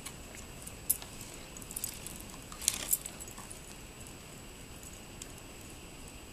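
Dog grabbing and pulling a long fallen stick through snow: a few sharp clicks and rattles in the first three seconds, then only a faint steady hiss as the stick is dragged.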